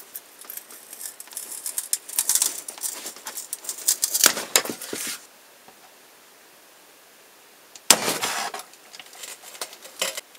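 Scraping and rustling of hand work with wood, with a sharp knock about four seconds in. After a quiet stretch, about eight seconds in, comes one sharp crack: a pistol crossbow shooting a knife-headed bolt into a stack of cardboard.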